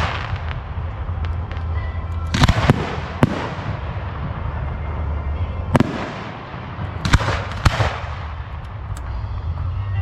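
Aerial display fireworks bursting: sharp bangs every second or two, with a quick cluster of three a few seconds in and another near the end, each followed by a crackling, echoing spray.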